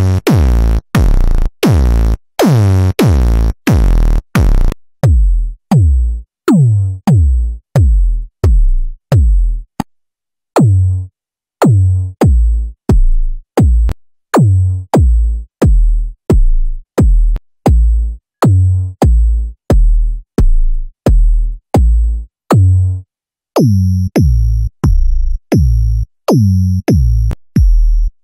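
Synthesized electronic kick drum from the KickOne kick synthesizer plugin, struck about twice a second: short deep kicks, each with a fast falling pitch sweep. The tone changes from preset to preset, heavily distorted for the first few seconds, then cleaner, with a brief pause at each preset change and a high ringing click on every hit near the end.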